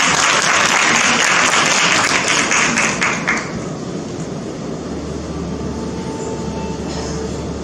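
Audience applauding, dying away about three seconds in; then a quieter hall with a low steady hum entering about two seconds later.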